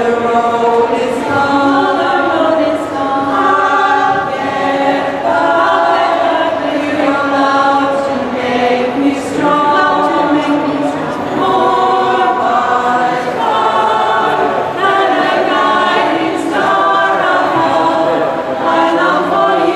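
A choir of men's and women's voices singing a song together in harmony, in sustained sung phrases.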